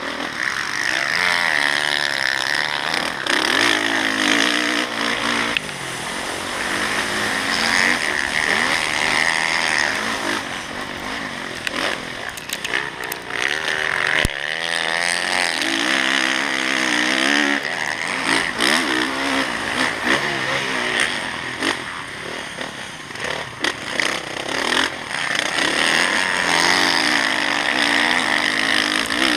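Dirt bike engine at racing speed on a motocross track, heard from on board: it revs up in repeated rising sweeps and drops back when the throttle is closed, over a steady rush of hiss.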